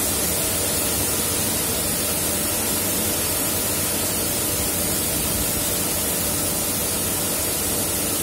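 Single-arm, 360-degree automatic car wash machine running: a steady, even hiss with a faint low machine hum beneath it.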